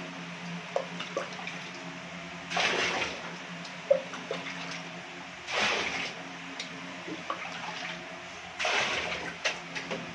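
Bucket bath: water scooped from a plastic bucket with a mug and poured out in three splashing rushes about three seconds apart, with small drips and knocks between them. A steady low hum runs underneath.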